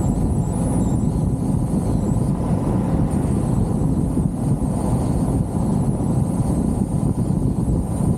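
Open-top Jeep driving at speed, wind buffeting the microphone over a steady low rumble of road and engine noise, with a faint wavering high whine on top.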